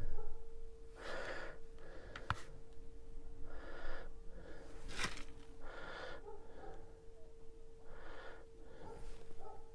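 A person breathing in and out close to the microphone, a breath every second or so, over a steady faint hum, with a couple of sharp light clicks.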